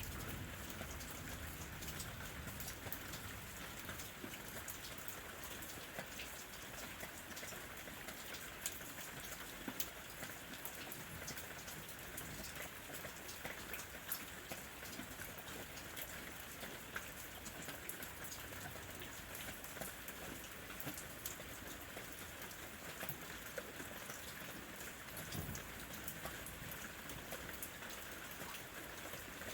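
Steady rain falling: a continuous hiss dotted with many small, sharp drop ticks.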